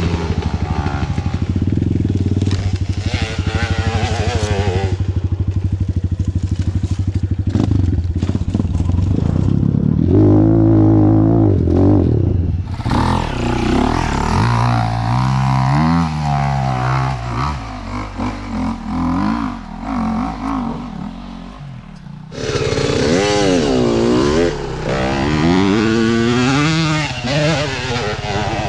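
Off-road dirt bike engines running hard on steep forest-trail riding: a steady engine drone with clatter at first, then repeated rising and falling revs as the throttle is opened and closed.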